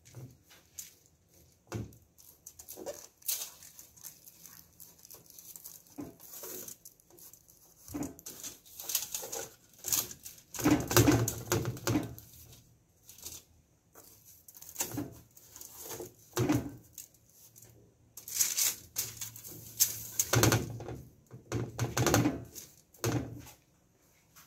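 Hands patting and rubbing dry rub into raw lamb chops on aluminium foil: the foil crinkles and rustles in irregular bursts, with soft handling of the meat. It is loudest about ten to twelve seconds in and again from about eighteen to twenty-three seconds.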